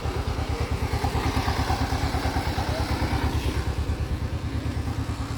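An engine running at idle with a steady, even beat of about seven thumps a second.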